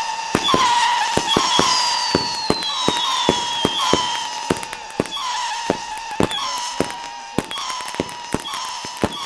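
Tropic Titanium Salut Scream salute battery firing: a rapid run of sharp bangs, about two to three a second, over the high whistling of its screaming shots, one whistle slowly falling in pitch. The barrage grows a little quieter toward the end.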